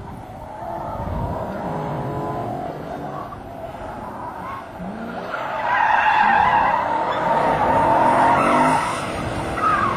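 BMW M3 cornering hard, its engine revving up and down and its tires squealing, loudest from about halfway through.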